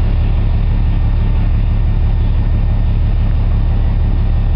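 Engine running with a loud, steady low rumble and a fast, even throb.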